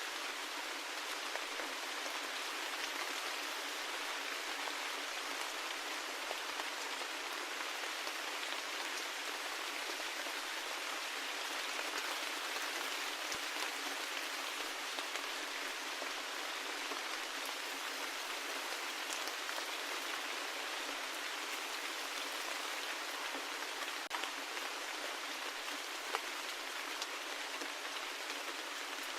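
Steady rain falling, an even hiss of drops with scattered individual drop ticks, no thunder or low rumble.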